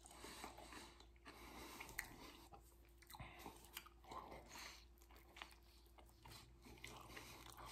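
Faint chewing of a mouthful of soft flour-tortilla burrito (rice, beans, vegetables), with small wet mouth clicks, and another bite taken about halfway through.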